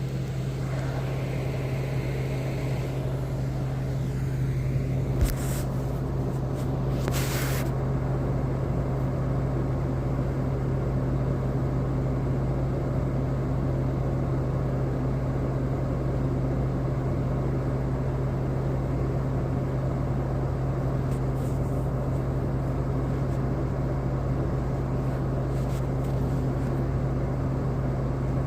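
Steady low mechanical drone of a running motor or engine, holding one even pitch throughout, with a brief click about five seconds in and a short hiss about seven seconds in.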